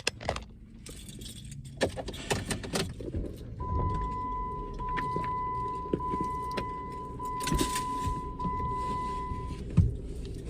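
Keys jangling and the clicks of getting into a car, then a car's warning chime starting about three and a half seconds in and sounding steadily, one ding about every second, until it stops shortly before the end.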